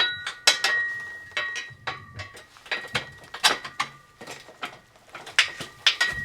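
Metal tubes of a kayak rack frame knocking and clinking together as a horizontal crossbar is pushed onto the uprights. It is a quick, irregular series of sharp knocks, some of them ringing briefly.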